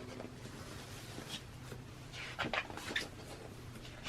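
Glossy magazine pages being handled and turned, a few short paper rustles, most of them bunched together in the second half, over a faint steady hum.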